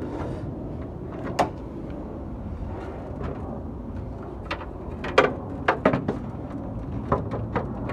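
Scattered knocks and clicks of objects being handled and set down, over a steady low rumble. The loudest fall about a second and a half in and in a cluster about five to six seconds in.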